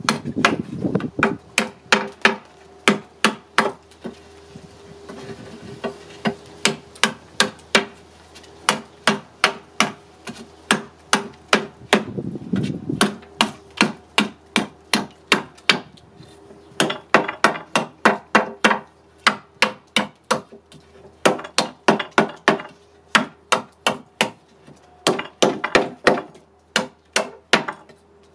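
A Nessmuk-pattern knife chopping into a wooden board: a steady run of sharp knife-on-wood strikes, about two or three a second, with a couple of short pauses.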